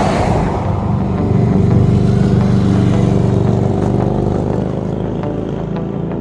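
Harley-Davidson V-twin motorcycle engine running under way. It grows louder to a peak about two seconds in, then slowly eases off.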